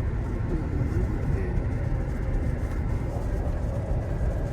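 Steady low rumble of a car's engine and road noise, heard from inside the moving vehicle.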